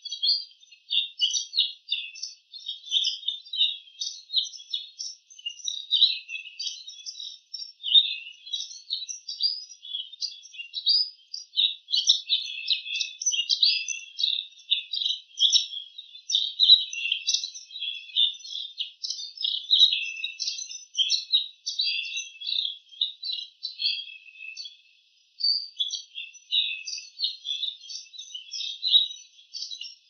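Bull-headed shrike singing a rapid, almost unbroken stream of short high chirps and warbles, mimicking the calls of other birds.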